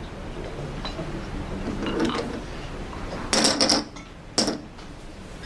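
Poker chips and cards handled on a card table: a rustle, then a loud clatter of chips a little past three seconds in and a single sharp clack about a second later.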